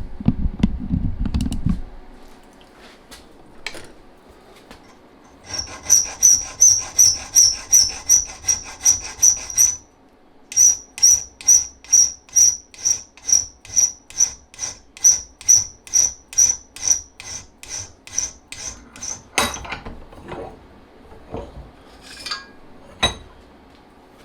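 Rhythmic back-and-forth strokes of a hand tool working a metal rod, about two strokes a second, each with a bright high ring. The strokes pause briefly partway through and are followed by a few light clicks. A brief low rumbling noise comes at the very start.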